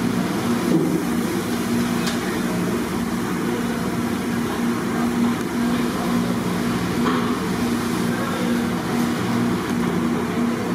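Steady roar of a gas stove burner under a large iron kadai, with hot oil bubbling and sizzling as marinated meat pieces deep-fry.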